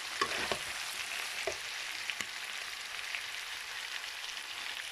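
Vegetables sizzling in hot oil in a wok as they are stir-fried, with a steady hiss and a few short knocks of the stirring utensil against the pan.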